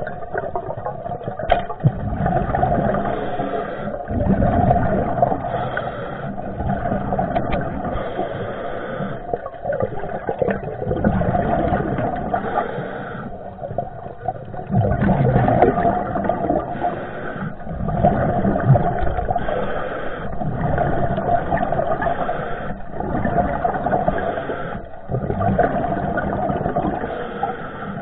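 Muffled rushing and sloshing of water heard through an underwater camera, swelling and fading every few seconds.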